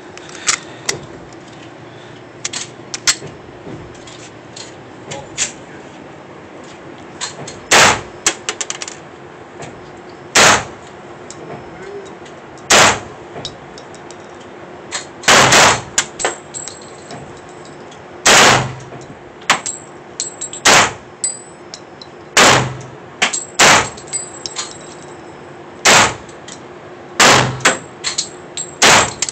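Smith & Wesson 22A-1 .22 LR semi-automatic pistol fired in single shots at an unhurried pace, with a dozen or so loud sharp reports, mostly two to three seconds apart and a few in quick pairs. Fainter gunshots come in between.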